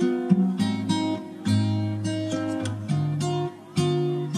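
Background music: an acoustic guitar playing plucked notes and strummed chords, each ringing and fading before the next.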